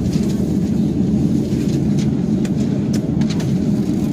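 Steady loud rumble of an airliner's engines and airflow heard from inside the passenger cabin, with a few light clicks over it.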